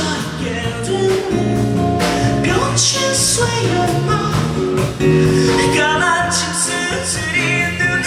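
A man singing live with an acoustic guitar, his voice holding and bending long notes.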